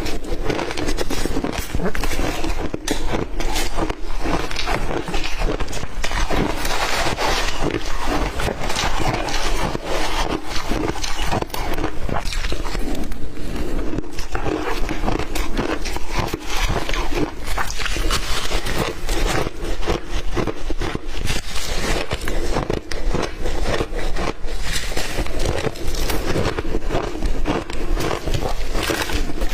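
Close-miked crunching of ice being bitten and chewed: a dense, continuous crackle of small snaps and crunches.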